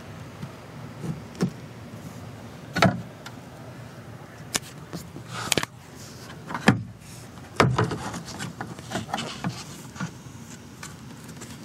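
Irregular clicks and knocks of parts being handled inside a car, the loudest about three, seven and eight seconds in, over a steady low hum.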